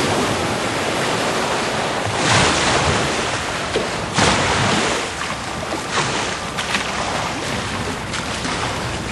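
Pool water splashing and sloshing as a killer whale swims fast along the wall and churns a wake, with a few louder surges of splash about two, four and six seconds in.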